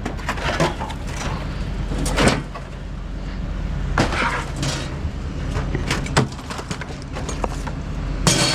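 Irregular knocks and clunks of scrap items being handled and moved, over a steady low hum, with the loudest knock near the end.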